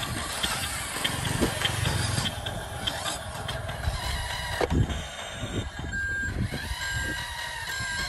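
Remote-control Mercedes-Benz dump truck model driving over grass and dirt: its motor and drivetrain run under a light, regular ticking, about two a second, in the first few seconds. There is a sharp knock about halfway through, and three short beeps near the end, about a second apart.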